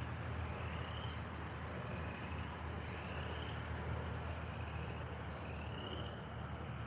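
Night-time chorus of calling insects and frogs: faint rising chirps recurring every second or so, over a steady low hum.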